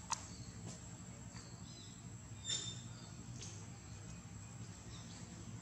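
Faint outdoor tree-canopy ambience: a steady, thin, high-pitched insect drone over a low hum. A sharp click comes just after the start, and a short high chirp about two and a half seconds in.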